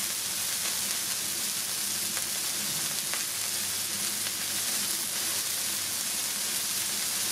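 Smashed beef burger patties sizzling on a hot flat-top griddle: a steady frying hiss with an occasional crackle.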